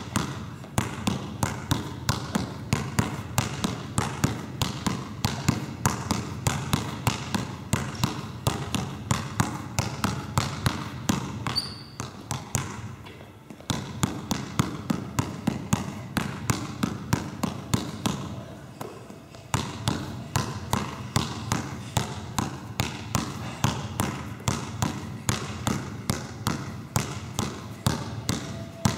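Basketball being dribbled hard and fast on a wooden sports-hall floor, a rapid, steady run of bounces that breaks off briefly twice, about halfway through and again a little later.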